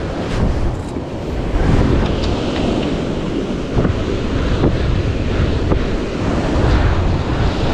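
Surf washing onto a beach, with wind buffeting the microphone in a steady low rumble.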